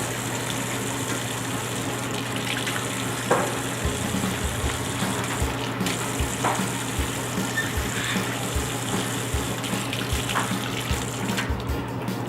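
Steady rush of running water, over a low steady hum, with a few faint clicks.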